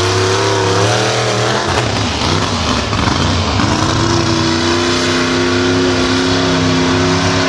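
Car engine revving under load, its pitch wavering for the first couple of seconds and then held steady.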